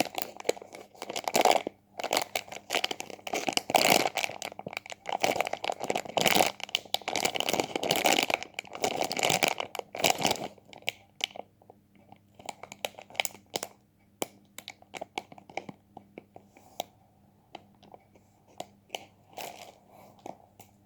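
Crunching and crinkling from something squeezed and handled, dense for about the first ten seconds, then thinning to scattered crackles and clicks.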